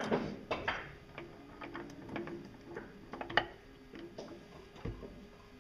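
Small metal parts and tools handled at a bench vise: a string of irregular clicks and light knocks, the sharpest about three and a half seconds in.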